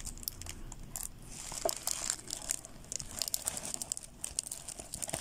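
Plastic-covered diamond painting canvas crinkling as it is handled, with irregular light crackles.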